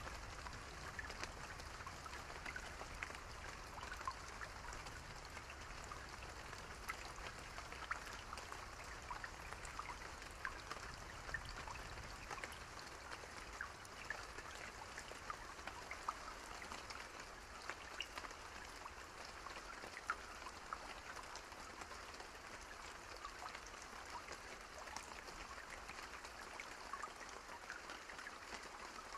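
Steady rain with many individual drops ticking and pattering against a hiss of falling water.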